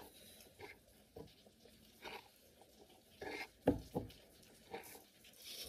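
Quiet eating sounds at a table: forks on plates, chewing and mouth noises, heard as a scatter of separate soft clicks and smacks, the sharpest about two-thirds of the way in.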